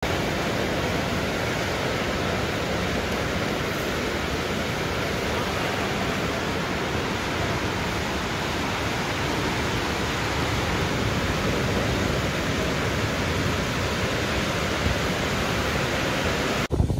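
Steady rushing roar of a large building fire burning through stored oil and ghee, unchanging until it cuts off abruptly just before the end.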